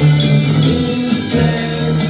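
1960s psychedelic pop recording: a full band playing sustained chords over a steady beat with regular percussion strokes.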